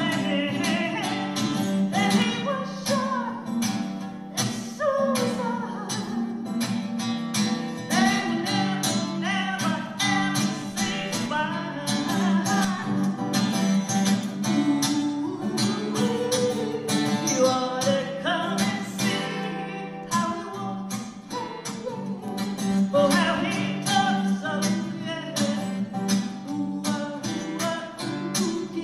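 A woman singing to her own strummed acoustic guitar: a solo singer-songwriter song with steady, rhythmic strumming.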